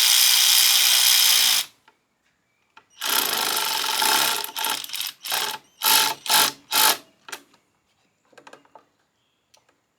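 Cordless drill driving a fastener on a hose clamp: one long run that stops about 1.7 s in, a second run from about 3 s, then about six short trigger pulses as the screw snugs down, and a few faint clicks near the end.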